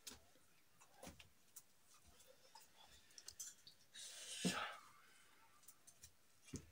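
Near silence: quiet room tone with faint scattered clicks, and one brief louder rushing noise about four seconds in.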